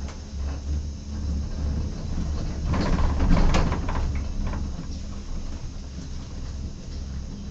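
Steady low hum of a cable-car gondola riding the moving haul rope, with a louder rattling and clattering of the cabin and rope gear about three seconds in.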